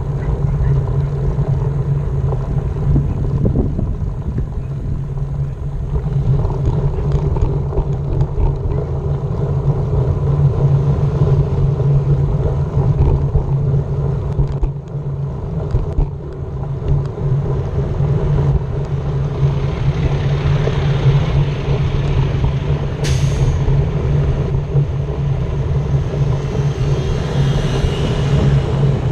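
Motor vehicle engine running steadily with a low hum, over road and wind noise. There is a single sharp, brief hiss about two-thirds of the way through.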